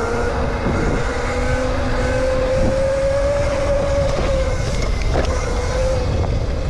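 Razor electric dirt bike riding, its motor and chain drive giving a steady whine that rises a little in pitch and eases back. The whine sits over a low rushing noise. The chain has just been sprayed with WD-40.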